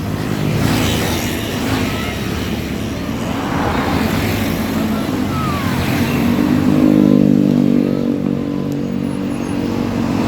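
Passing road traffic with a bus engine drone that swells from about six seconds in, peaks, and then eases off.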